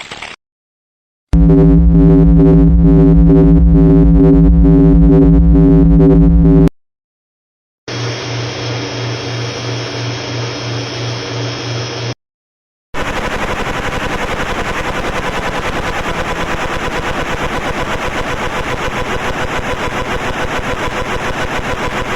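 Three separate engine recordings in a row with short silences between them. First a loud, steady engine run of about five seconds, then a quieter engine with an even pulse for about four seconds, then a longer, rougher-sounding engine with a fast, even beat.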